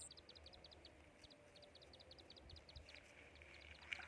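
Near silence, with faint, quick high-pitched chirps from a small animal repeating in runs of several a second.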